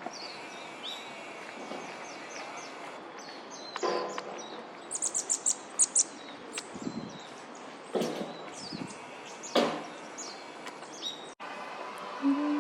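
Small woodland songbirds calling, with many short high chirps and down-sliding notes and a quick run of high chirps about five seconds in. A few brief rustling knocks sound in between.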